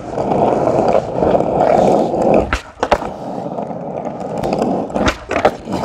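Skateboard wheels rolling over rough asphalt with a steady rumble that eases briefly after about two and a half seconds. A few sharp clacks of the board come around the three-second mark and twice near the end.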